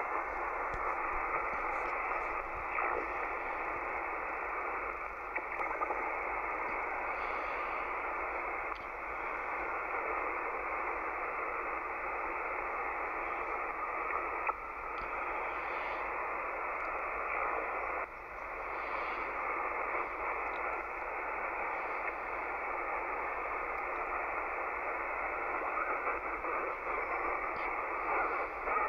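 Icom IC-7300 HF transceiver's receiver audio tuned just above the CB band near 27.4 MHz: a steady hiss of band noise held within the radio's narrow audio passband, with a few brief dips in level.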